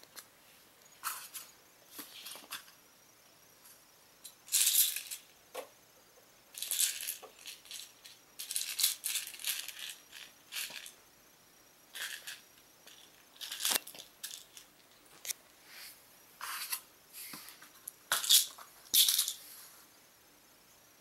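Kittens play-fighting on carpet, batting cardboard tubes and other small toys: irregular scratchy scuffles with light knocks and rattles, loudest twice, in bursts of a second or so.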